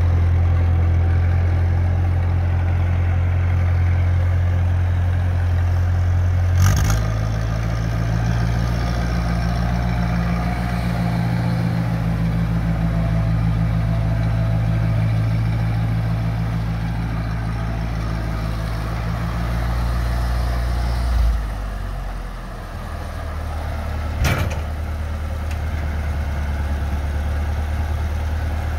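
Ferguson TO35 tractor's gasoline engine running as it drives. The engine note shifts with a short knock about seven seconds in, settles lower around twenty-one seconds, and another sharp knock comes a few seconds later.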